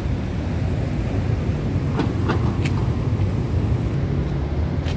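Steady low rumble of road traffic on a city street, with a few short clicks about two seconds in.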